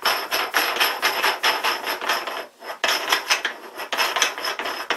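Outer sleeve of a Metabo Futuro keyless drill chuck spun by hand off the threaded chuck body, the steel parts grating and rattling against each other in a fast run of scrapes, with a short break about two and a half seconds in. The sleeve has just broken loose after heating and hammering.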